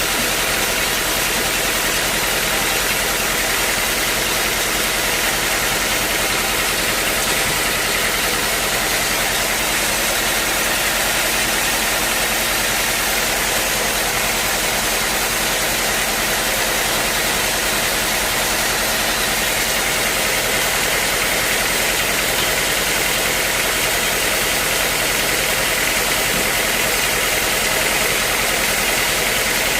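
Sawmill machinery running steadily, a motor with a constant hiss and no change in pitch.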